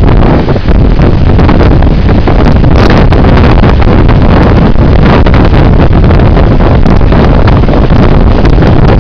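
Tropical-storm wind buffeting the microphone: a loud, continuous rumble that runs under the surf breaking on the rocks.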